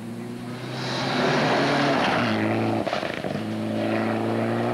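Rally car engine at high revs going through a gravel stage, growing louder over the first second or two. The engine note breaks off briefly about three seconds in, then comes straight back at high revs.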